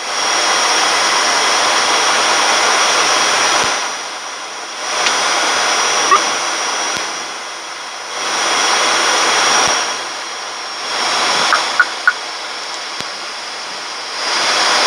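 Cockpit noise of the ATR 72-600's turboprop engines and propellers on final approach: steady high whining tones over a loud rushing hiss that swells and fades about five times, with a few faint clicks.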